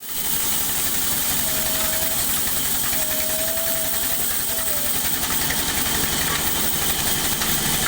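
Sawmill machinery running steadily, a loud engine-driven drone with a fast low pulsing under a broad hiss. A faint thin tone comes and goes in the middle.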